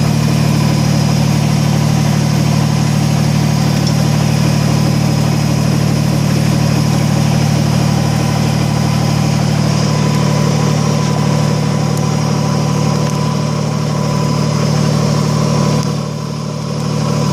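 Kubota BX25D tractor's three-cylinder diesel engine running steadily, with a brief dip in level near the end.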